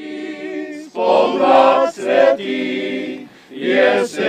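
A group of men singing a Slovenian folk song together in harmony, in long held phrases with short breaths between them.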